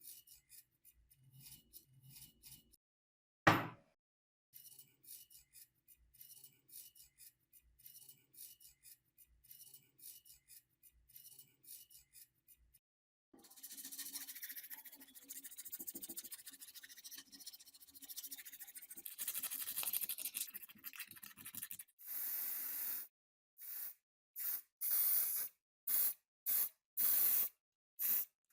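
Light rubbing strokes on a metal part with a single sharp knock, followed by a longer stretch of hiss. Then come short, repeated blasts from an aerosol spray-paint can, several bursts about a second apart near the end.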